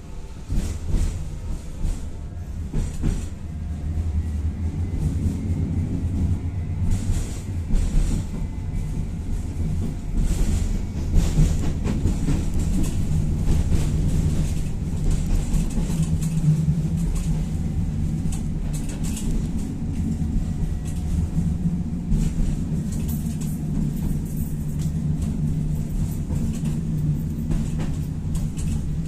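Tatra-Yug K1M tram running along the track, heard from inside: a steady low rumble of wheels on rails with a humming drive tone and scattered clicks and knocks from the track.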